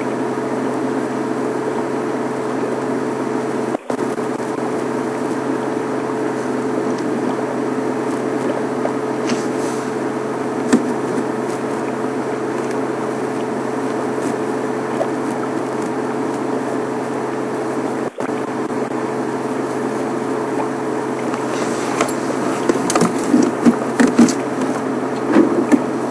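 Safari vehicle's engine idling with a steady hum. A few sharp crackles and snaps come near the end.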